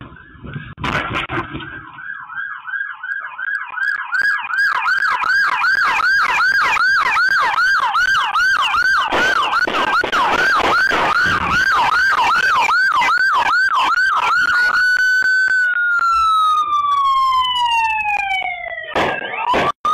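Police car siren in fast yelp mode, its pitch sweeping up and down about two to three times a second, changing near the end to a single slower, long falling wail.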